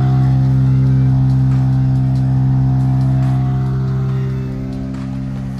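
Motorboat engine running steadily with a droning hum, its level easing down a little about four and a half seconds in.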